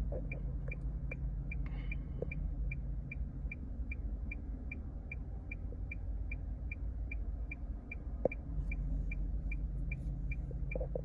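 Short electronic beep repeating evenly about two and a half times a second, one high tone each time, over a steady low hum.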